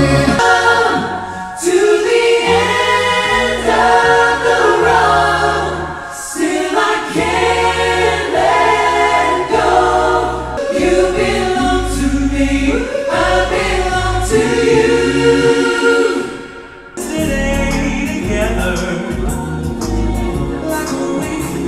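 A cappella vocal ensemble singing in several parts, all voices and no instruments, over a low held vocal bass line. About three quarters of the way through the singing dips briefly and a new passage begins.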